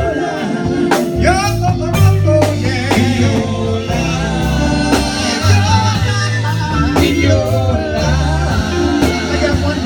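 Gospel singing with a live church band: a lead voice sings over a walking bass line, with drum and cymbal hits about once a second.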